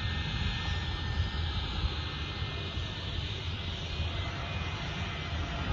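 CAL Fire airplane's engines droning steadily as it flies in low on approach, with a thin whine over the drone.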